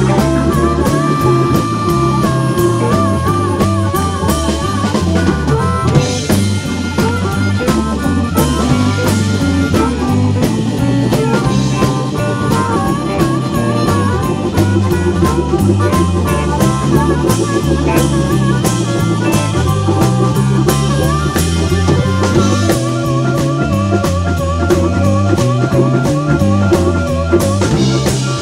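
Live blues band: two harmonicas played into handheld microphones, trading lines of held, wavering and bent notes over a drum kit, electric guitar and a stepping low bass line.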